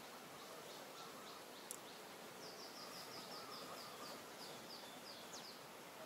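Faint outdoor ambience in which a bird calls a rapid run of short, high, falling notes, about four a second, from about two and a half to five and a half seconds in.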